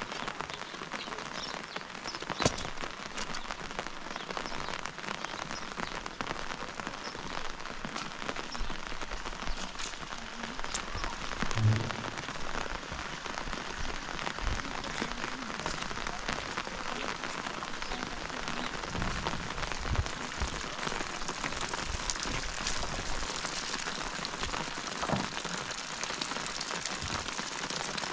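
Steady rain falling, with many scattered sharp drop hits. There is a louder click about two and a half seconds in and a short low knock about twelve seconds in.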